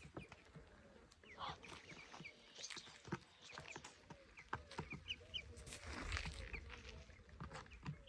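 Faint animal chirps and soft clucks: many short, high calls repeating among small clicks, with a fuller, breathy swell about six seconds in.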